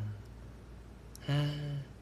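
A young man's voice: one short, held vocal sound about half a second long, a little over a second in, preceded by a small click.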